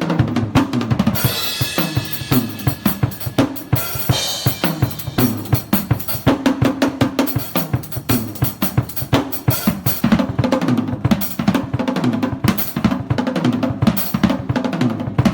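Drum kit played in fast fills: rapid snare and bass drum strokes mixed with drums of different pitch, and splashes of cymbal about a second in and again around four seconds.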